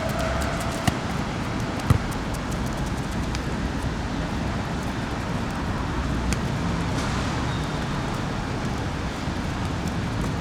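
Steady outdoor rumble of wind on the microphone and distant traffic, with two sharp knocks about one and two seconds in.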